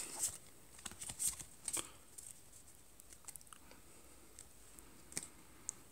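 Pokémon trading cards handled in the hands while three are moved from the back of the freshly opened pack to the front: faint scattered clicks and rustles of card stock sliding and tapping, a few close together in the first two seconds and a sharper tap a little after five seconds.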